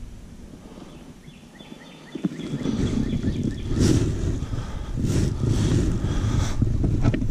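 Faint chirps of a bird singing for the first couple of seconds, then a low rumble of wind and handling noise on the camera microphone that swells several times.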